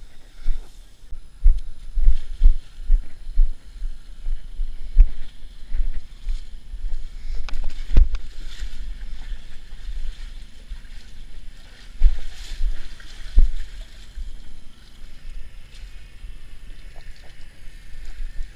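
Wading through a muddy creek: water splashing and sloshing around the legs, with steps in mud, over irregular low thumps of wind and movement on a body-worn camera's microphone, the strongest about 8 seconds in.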